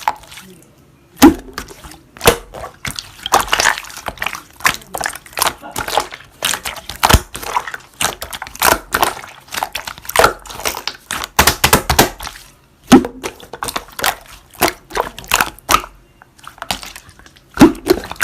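Slime being squished and pressed by hand, making a dense run of irregular wet clicks and pops, a few of them louder.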